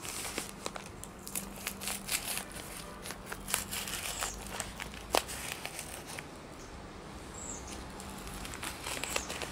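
Paper envelope being slit open with a small slip-joint folding knife: irregular crinkling and tearing of paper with scattered clicks, one sharper click about five seconds in.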